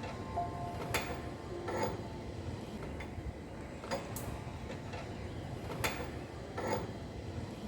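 Car jack being cranked to lift the car: low mechanical rumble with about six sharp metallic clicks at irregular intervals.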